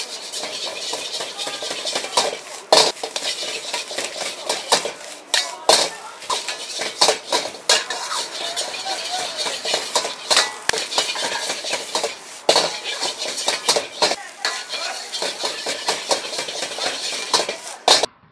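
Metal ladle scraping and clanging rapidly against a wok as fried rice is stir-fried, with frying sizzle underneath. It stops abruptly just before the end.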